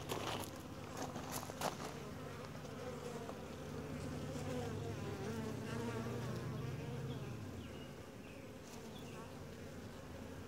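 Honey bees from an open hive buzzing in a steady, even hum, the sound of a calm colony. A few sharp clicks and knocks in the first two seconds.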